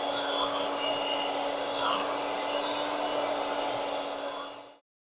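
Electric hand mixer running steadily with a constant hum, its beaters whipping cream and sugar in a glass bowl; it stops near the end.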